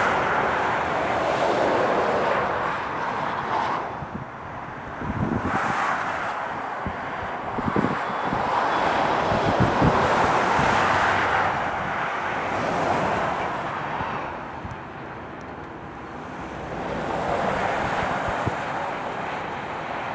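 Heavy lorries passing one after another on a motorway: tyre and engine noise swells and fades several times, with wind buffeting the microphone.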